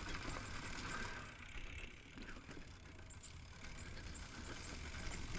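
Intense M6 mountain bike rolling along a dirt trail: the rear hub's freewheel ticks as it coasts, over a steady low rumble of tyres and wind on the helmet-mounted camera.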